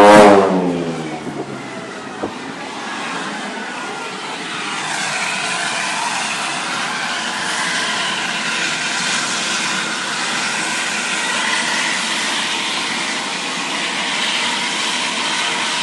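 Helicopter turbine and rotor noise close by: a steady rushing noise of rotor downwash driving dust, with a faint turbine whine that falls slightly in pitch, growing louder about five seconds in. A short, loud swell at the very start.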